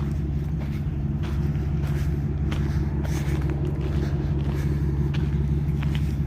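Engine of the towing truck idling steadily, a low even rumble, with a few faint clicks over it.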